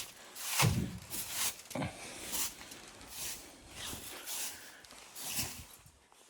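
Footsteps crunching in snow at a steady walking pace, growing fainter toward the end.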